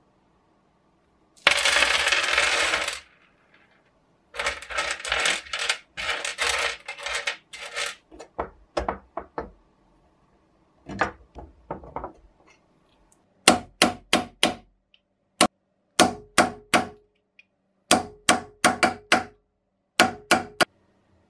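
Metal parts of a bottle corker being worked during assembly. First comes a harsh scrape of about a second and a half, then a series of shorter scraping strokes and a few clicks. After that come sharp metal-on-metal taps, each with a brief ring, in clusters of two to five.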